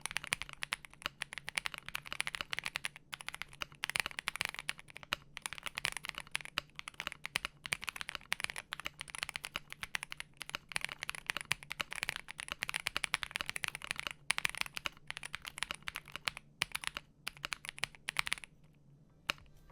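Fast, continuous typing on a Wuque Studio Mammoth75 mechanical keyboard with stock WS Onion switches, Aurora stabilizers and all foams fitted: a dense run of keystroke clicks that stops near the end.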